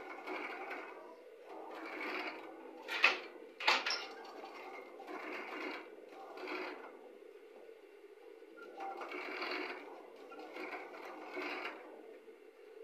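Cylinder-arm industrial sewing machine stitching heavy bag fabric in short runs over a steady motor hum, stopping and starting every second or two. Two sharp clicks stand out about three seconds in.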